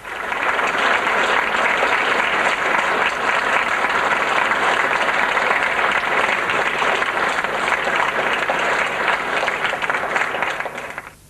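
Concert hall audience applauding, a dense, steady clapping that fades out near the end.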